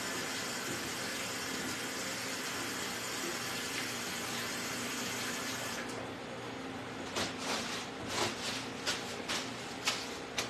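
Tap water running into a stainless steel sink during handwashing, turned off about six seconds in. It is followed by several short, sharp paper rustles and tears as paper towels are pulled from a wall dispenser to dry the hands.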